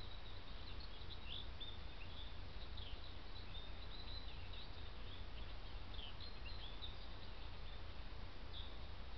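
European robin singing: thin, high, quickly varied phrases of short chirps and slurred notes, over a steady low hum.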